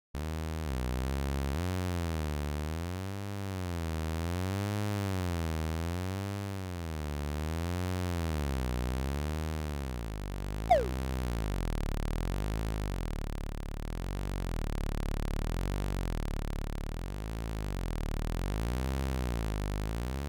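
Synthesized low buzzing hum, a cartoon race car's engine sound effect, wobbling slowly and evenly about every second and a half. About eleven seconds in, a short, sharp whistle falls quickly in pitch.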